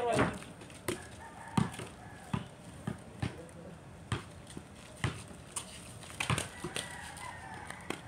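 Basketball bouncing and slapping on a concrete court in irregular thuds as players dribble, shoot and rebound. A rooster crows faintly in the background twice, once early and once near the end.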